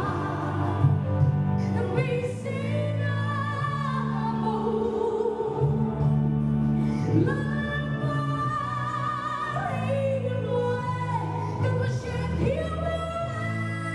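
A woman singing a gospel song into a microphone over instrumental accompaniment, with long held notes and vibrato.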